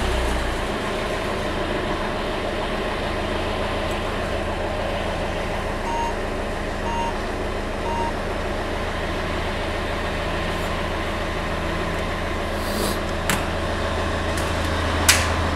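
Citroën C5 Mk1's engine idling steadily just after starting, running with no fault reported. Three short electronic beeps about a second apart come partway through, and a couple of light clicks near the end.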